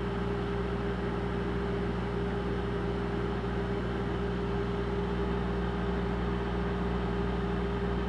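Microwave oven running with a steady hum, several low drones held without a break.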